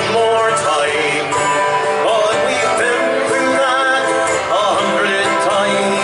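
Live folk-style band music: a mandolin and guitar playing, with a man singing.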